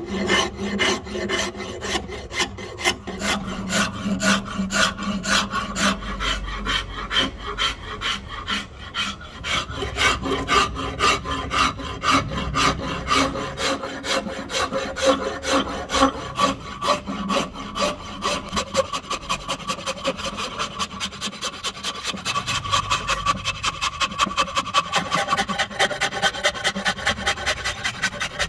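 Hand rasp shaping a rosewood axe handle in steady back-and-forth strokes, about three a second.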